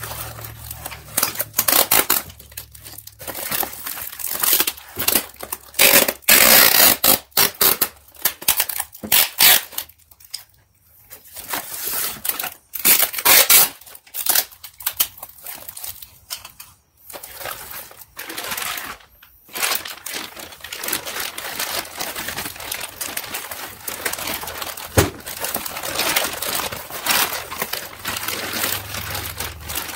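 Brown wrapping paper crinkling and rustling in irregular bursts as it is folded around a transmission pump, with some tearing. From about two-thirds of the way through, a denser, steadier rustle of a plastic bag as the wrapped pump goes into it.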